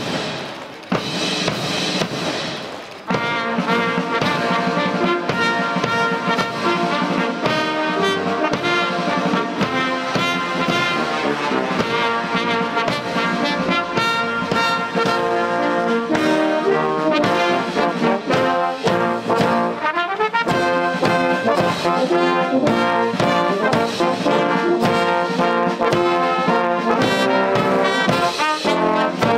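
Military brass band playing: about three seconds of drumming, then trumpets, trombones and the rest of the band come in together and play on steadily.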